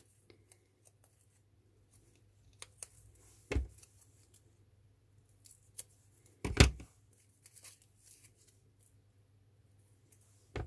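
Small craft scissors snipping strips of double-sided foam tape: a few sharp, separate snips, the two loudest about three and a half and six and a half seconds in, with faint clicks of the tape being handled in between.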